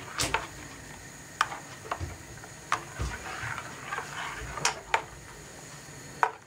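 Metal slotted spoon stirring liquid in an enamel pot, a swishing slosh broken by several irregular sharp clinks of the spoon against the pot.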